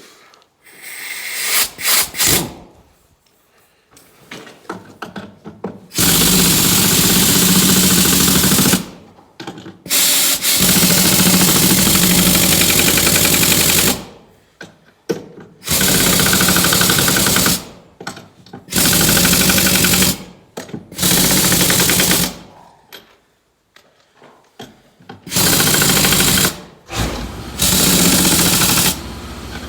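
Air impact wrench running in about seven short bursts of one to three seconds each, tightening wheel lug nuts.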